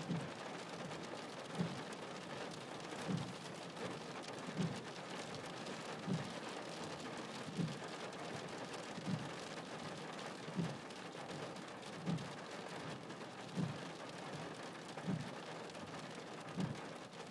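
Rain pattering on a car's roof and windscreen, heard from inside the car. A short, soft low thump repeats about every second and a half.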